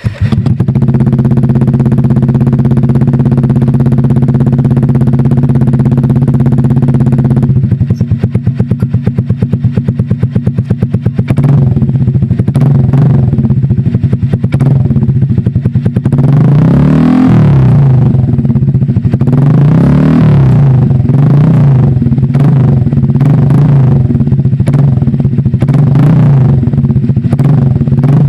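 Honda Click scooter's single-cylinder engine running through an SC Project exhaust with no silencer insert, loud and steady at first, then revved in a series of throttle blips through the second half.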